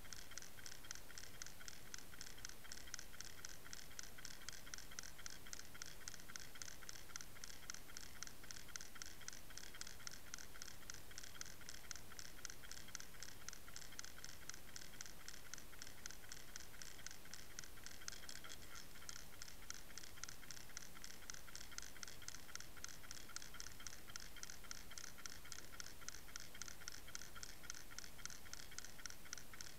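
Steady, fast, even ticking and scratching, picked up underwater while a fishing lure is towed through the water.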